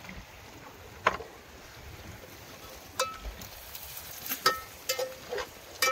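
Handling of gear and fishing line on a wooden boat: a sharp knock about a second in, then a run of light clinks and knocks, more frequent from about three seconds on, some with a brief metallic ring.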